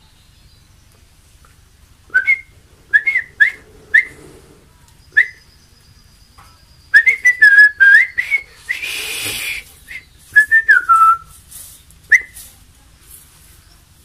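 A person whistling short chirping notes through pursed lips. Single chirps come about two seconds in, a quick run of them around seven to eight seconds, and a longer falling whistle near eleven seconds. A brief rushing hiss comes just before nine seconds.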